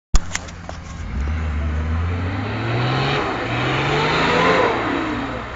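Off-road SUV's engine revving under load in mud: the revs climb twice, with a dip in between, then fall away near the end. Two sharp clicks at the very start.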